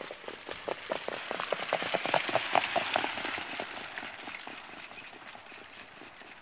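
Hoofbeats of two harness horses pulling sulkies at speed on a sandy dirt track: a rapid patter of many hoof strikes that grows louder as they pass, loudest about two and a half seconds in, then fades as they move away.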